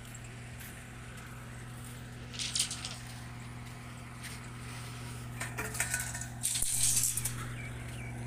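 Steel reinforcing bars clinking and rattling against each other, briefly about two and a half seconds in and again in a longer spell a little after the middle, over a steady low machine hum.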